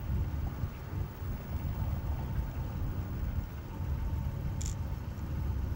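Axial SCX24 micro rock crawler's small electric motor and gear drive running at low throttle as it creeps on rock, a low uneven drone.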